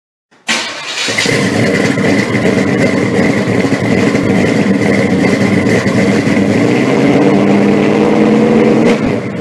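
A car engine running loudly with a steady high whine over it. It starts abruptly about half a second in and cuts off at the end.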